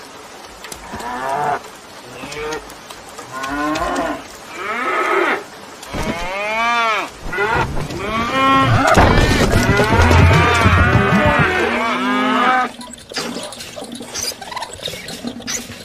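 Cows mooing, a string of separate calls that rise and fall in pitch, then a long, loud stretch of overlapping moos about halfway through. Near the end the mooing stops and a light clicking and rattling takes over.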